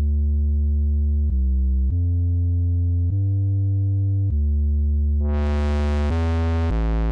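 Sub-bass line from the Subdivine synth plugin: clean, sine-like held notes changing pitch every second or so. About five seconds in, the Trapdrive distortion is turned up and the notes turn buzzy with many added overtones.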